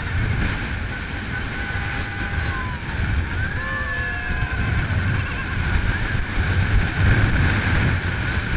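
Heavy wind buffeting the microphone over the low rumble of an open-air dune-ride vehicle driving along a sand track.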